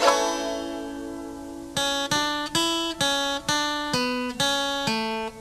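Acoustic guitar music: a chord is struck and left to ring, then about a second and a half in a run of single plucked notes follows, roughly two a second.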